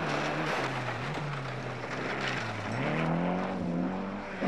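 Rally car engine under hard driving on a gravel stage. Its note drops about half a second in, holds, dips again about two and a half seconds in, then climbs as the car accelerates, over a hiss of tyres on gravel.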